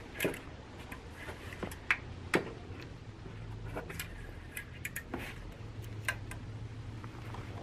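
An engine oil dipstick being wiped with a cloth shop rag and slid back into its tube: faint rustling with a few light clicks and taps, over a steady low hum.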